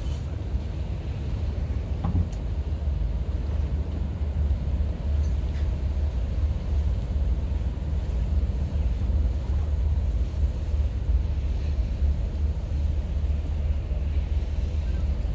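Steady low rumble of a boat's engines, heard from on board while under way.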